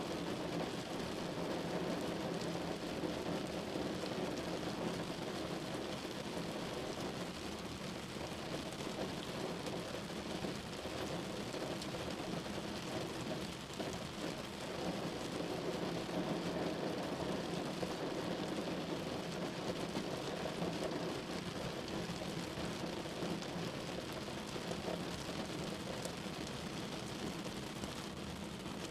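Steady rain falling on a window, a continuous hiss and patter with no pauses.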